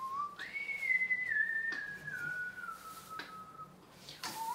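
A person whistling: one long note that jumps up and then slides down slowly in small steps, followed near the end by a second note that rises. A few faint clicks lie underneath.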